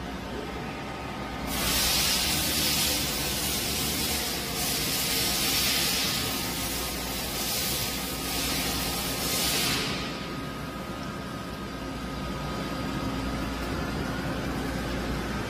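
Hyundai WIA KBN-135 CNC horizontal boring mill running, its boring spindle extending out of the headstock, with a steady low hum. Loud hissing comes in several bursts from about a second and a half in until about ten seconds in, and a faint rising whine follows near the end.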